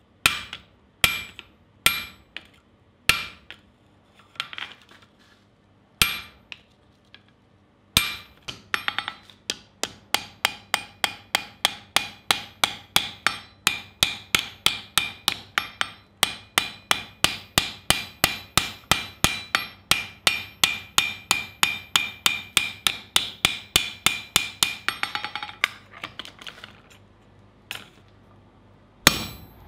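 Hand hammer striking a red-hot steel hoe blade on an anvil, with the anvil ringing. A few separate blows come about a second apart, then a long run of quick, even blows at about three a second that stops a few seconds before the end. One more heavy blow lands just before the end.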